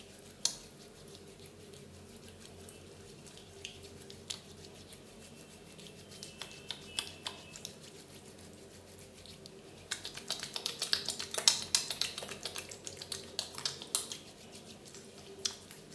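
Oiled hands rubbing and squeezing through long hair, making soft wet crackles and squishes, with a sharp click about half a second in. The crackling grows busier and louder from about ten seconds in until near the end.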